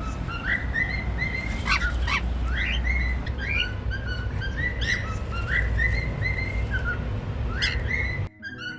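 Cockatiel whistling its song: a quick run of short whistled notes, many sliding upward, broken by a few sharp chirps. Near the end it cuts off suddenly and plucked harp music takes over.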